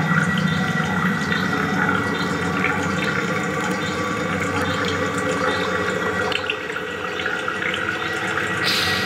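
Liquid stirred in a plastic cup, giving a trickling, clicking water sound that is amplified through the performance electronics, over a steady drone of held electronic tones. A hiss comes in near the end.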